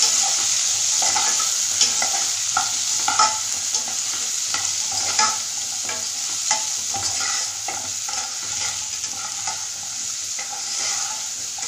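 Drumstick (moringa) pieces frying in hot oil in a metal pot, with a steady sizzle, while a metal ladle stirs them and clinks and scrapes against the pot about once a second.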